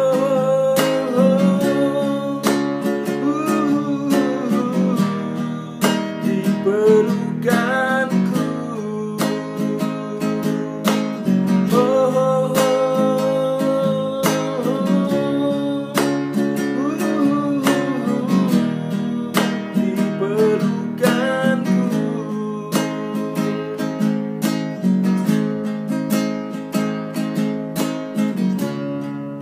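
A man singing with a classical acoustic guitar, strumming and plucking chords. The singing stops about two-thirds of the way through and the guitar carries on alone with steady rhythmic chords.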